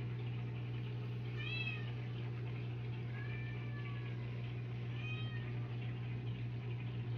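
A domestic cat meowing three times, each call arching up and down in pitch, over a steady low hum.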